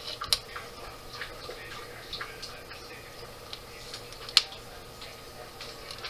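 Light, scattered clicks and taps of small fan hardware being handled, as screws and parts from the fan's parts pack are sorted through. One sharp click comes just after the start and a louder one about four seconds in.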